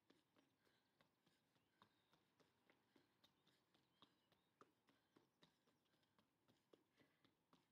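Near silence, with faint irregular ticks and taps, several a second.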